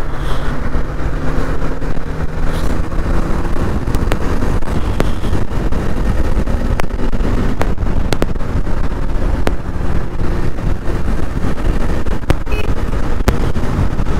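Motorcycle ridden at highway speed, heard from the rider's helmet: steady wind rush over the microphone with the engine's note underneath, the bike speeding up past 100 km/h.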